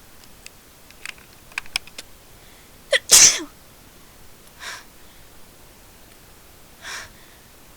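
A person sneezes once, loudly, about three seconds in. Two softer breaths follow.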